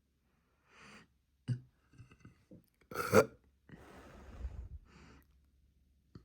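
A young woman burping, brought on by sparkling water and a stomach full of pancakes. One loud burp comes about three seconds in, with quieter breathy sounds and small noises around it.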